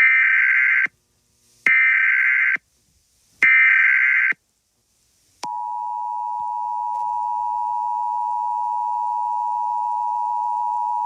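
Emergency Alert System signal: three short bursts of buzzy SAME header data tones, each just under a second long. About five seconds in, the steady two-tone EAS attention signal starts and holds.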